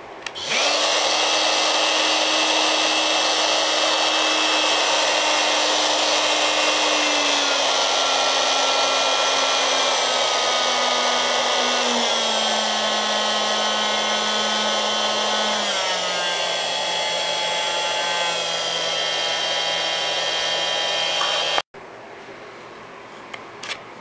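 Makita XMT04 brushless cordless oscillating multi-tool switched on and running with no load, a steady buzz whose pitch drops in several steps as the speed dial is turned down. It cuts off suddenly when switched off near the end.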